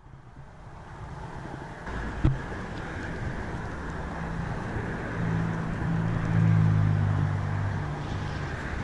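Road traffic on the neighbouring highway bridge: a steady low hum from passing vehicles that builds up and is loudest about two-thirds of the way through. A single sharp click a couple of seconds in.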